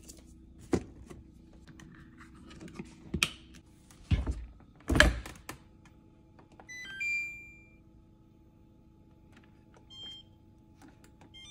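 Clicks and knocks of a dishwasher being loaded with a detergent pod, the loudest a thunk about five seconds in, like the door shutting. Then the dishwasher's control panel chimes a short run of rising beeps and gives single beeps as its buttons are pressed, over a steady low hum.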